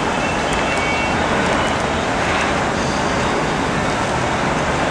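Boeing 757 jet engines running, a steady even rush of noise with a faint high whine in it.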